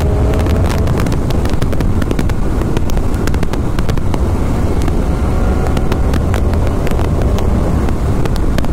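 BMW motorcycle engine and wind noise at highway speed, picked up by an external helmet microphone, broken throughout by frequent sharp crackles. It is a bad crackle that comes at speed under throttle, from the microphone or, as the rider suspects it could be, the GoPro adapter.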